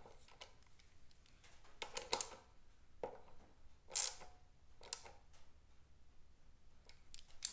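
A hand tool working a bolt at the top of a motorcycle's girder front fork: a handful of separate short metallic clicks and scrapes, about one a second, the loudest around the middle.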